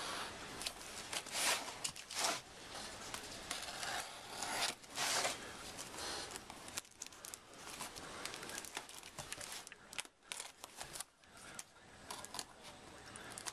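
Craft knife slitting the plastic wrapping and tape of a cardboard parcel: irregular scratchy cutting strokes with crinkling and tearing of the plastic.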